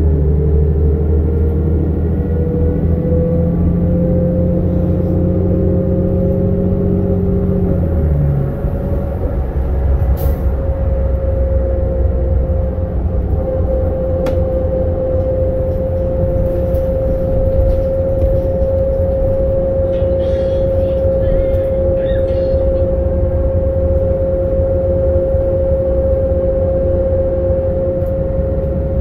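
Cabin sound of a New Flyer C40LFR CNG transit bus under way: low engine drone and road rumble with a steady drivetrain whine that rises a little at first and then holds. The engine note changes about eight seconds in, and there are a couple of sharp rattles from the interior a little later.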